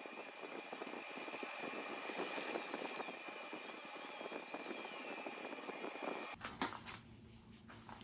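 Power drill spinning a sanding disc against a maple burl bowl turning on the lathe: a steady high whine over the rasp of abrasive on wood. It cuts off about six seconds in, leaving a few quiet clicks and handling sounds.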